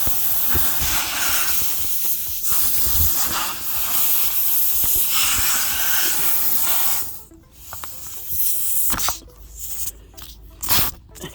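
Air hissing loudly and steadily from a tire, fluttering slightly, then cutting off about seven seconds in; a few sharp knocks follow.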